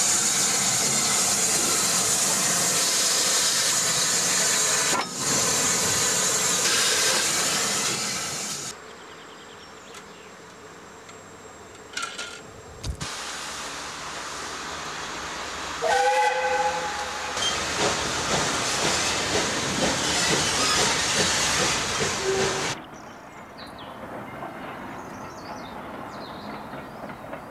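Pacific steam locomotive venting steam in a loud, even hiss that stops about nine seconds in; after a quieter spell with a couple of sharp knocks, it gives one short whistle blast about sixteen seconds in, and the hissing starts again and cuts off near the end.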